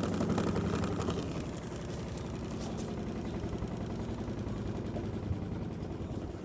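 Washing machine running with a rapid, continuous knocking and banging, the sign of a fault in the machine.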